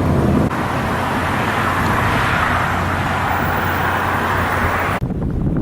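Steady vehicle road noise, an engine hum with tyre rumble that swells in the middle. About five seconds in it cuts off abruptly, giving way to wind buffeting the microphone.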